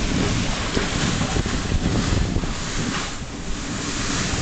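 Wind buffeting the microphone on a moving dog sled: a steady rushing noise with a gusty low rumble underneath.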